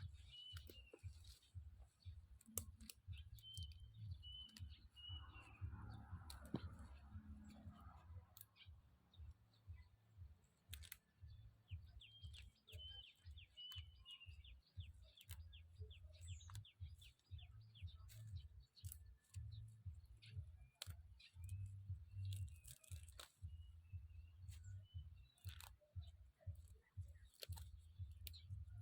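Faint scattered clicks and snaps, with a small bird chirping in short repeated notes in the background.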